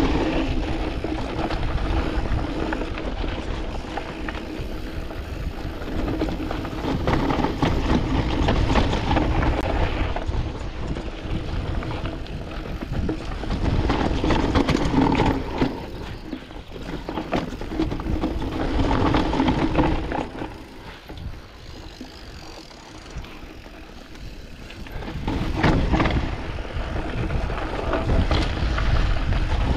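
Canyon Spectral AL 6.0 full-suspension mountain bike ridden downhill over rocky, dusty trail, heard from the rider's chest: tyres crunching over gravel and rock, with the chain and frame rattling over bumps and wind rumbling on the microphone. It swells and eases with speed, and goes quieter for a few seconds about two-thirds of the way through.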